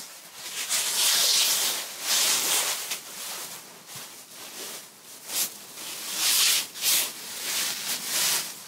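Dry fallen leaves rustling and crackling as handfuls are heaped onto a person lying in a leaf pile, in several rustling surges: a long one at the start, then shorter ones in the second half.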